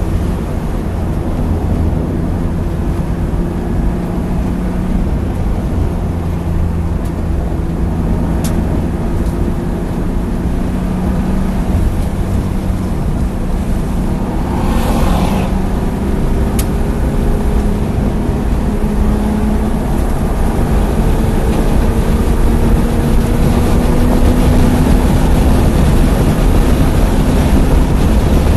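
BMW E36 325i's 2.5-litre straight-six heard from inside the cabin under hard acceleration on track, its pitch climbing steadily. About halfway through it changes up a gear with a brief rush of noise, then pulls again with a heavy rumble of road and wind noise underneath.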